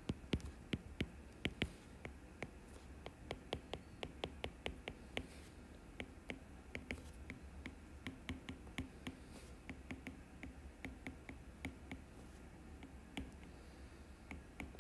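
Stylus tip tapping and clicking on a tablet's glass screen during handwriting: a faint, irregular run of light clicks, several a second.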